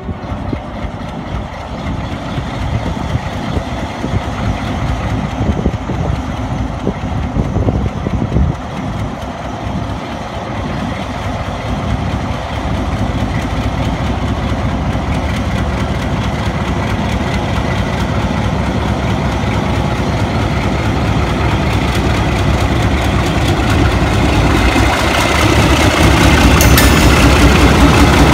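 Pakistan Railways diesel locomotive's engine running as it pulls a passenger train out of the station. The engine sound grows steadily louder as the locomotive draws up and passes close by.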